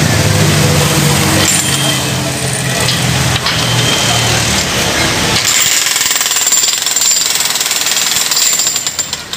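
Jackhammers rapidly hammering concrete, a loud, continuous chatter. A deeper low hum underneath drops away a little past halfway while the hammering goes on.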